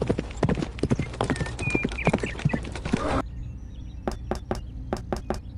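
Cartoon-style hoofbeat sound effect, a fast clip-clop of many sharp clicks that cuts off abruptly about three seconds in. It is followed by a quick run of about seven sharp knocks on a door.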